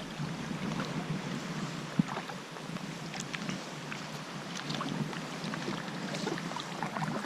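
Water splashing and dripping around a kayak under paddle strokes: a steady wash with many small scattered splashes and one sharper knock about two seconds in.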